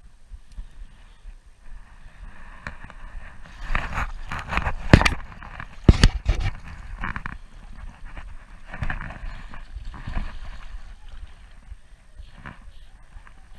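Water splashing and sloshing in uneven swells, with two sharp knocks about five and six seconds in.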